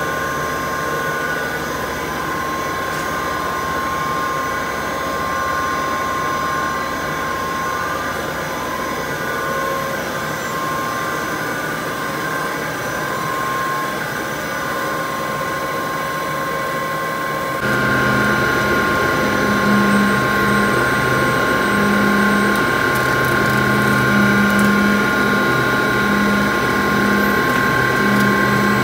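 HDPE pipe extrusion and coiling machinery running steadily, with a few steady whining tones over a mechanical hum. About two-thirds of the way through the sound changes abruptly and gets louder, with a low hum that pulses on and off, and a few clicks near the end.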